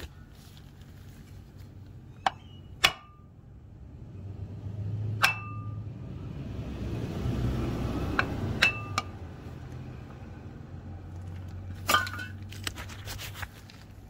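Steel wrenches and hand tools clinking against each other in a toolbox drawer as they are moved, about ten irregular sharp clinks, several with a brief metallic ring. A low rumble swells up in the middle and fades again.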